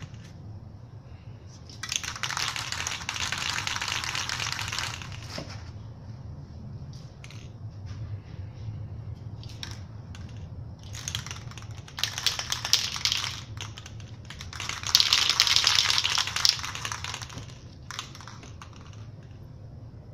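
Aerosol spray paint cans hissing in several bursts: one long burst of about three seconds, then shorter ones and another long one later, with scattered light clicks and taps between the bursts.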